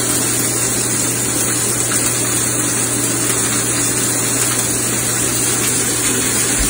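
Steady sizzling of steaks frying in a very hot cast iron pan, with a steady low hum underneath.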